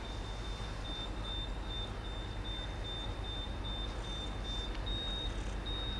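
A high-pitched electronic beep at one steady pitch, pulsing rapidly several times a second and then sounding in longer stretches near the end, over a low steady background rumble.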